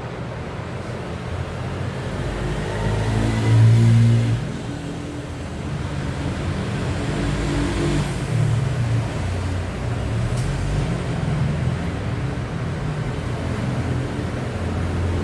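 A motor vehicle's engine running, rising in pitch and getting louder about three to four seconds in, then running on with an uneven pitch.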